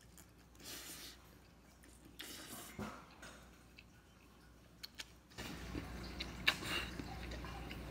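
A person slurping spicy instant noodles off chopsticks in a few short, noisy pulls with pauses between them. A few sharp clicks come near the end, over a steadier background noise that starts a little after halfway.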